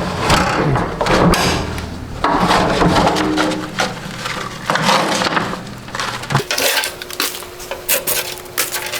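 Sheet-metal tool chest and drawers being handled: repeated metallic clattering, knocking and scraping.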